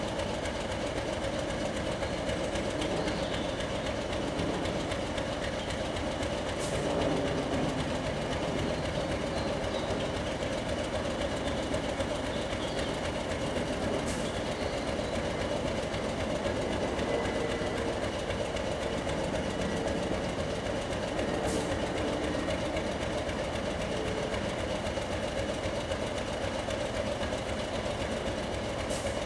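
Diesel locomotive engine idling steadily at a station platform, a constant low-pitched running sound.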